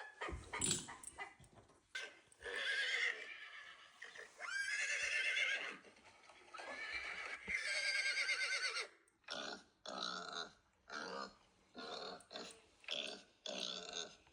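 Horse whinnying sound effect: three long, wavering whinnies, followed by a run of short repeated sounds at about two a second.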